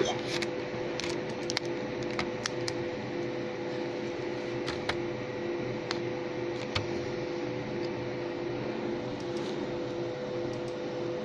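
Steady running hum of a MOPA fiber laser marking machine, two held tones over a noise of fans, with scattered light clicks, more of them in the first few seconds.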